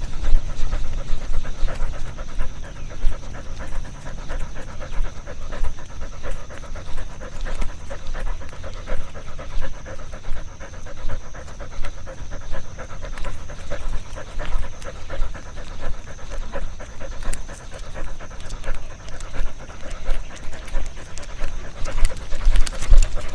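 A dog panting rapidly and evenly, close to a camera strapped to its body, with low rumble from the mount rubbing and jostling.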